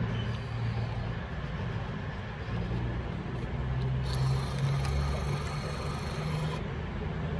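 Railway station concourse ambience, a steady low rumble. About four seconds in, a high hissing whir starts, runs for about two and a half seconds, and cuts off sharply.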